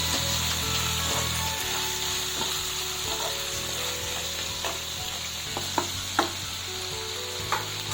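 Chicken pieces sizzling as they fry in a pan of onion-tomato masala, stirred with a spatula that knocks against the pan several times.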